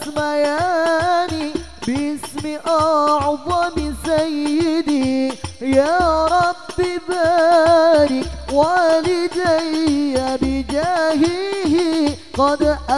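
A man singing a sholawat into a microphone: a high, ornamented melody with quick wavering runs. Under it are a low beat about every two seconds and light percussive taps.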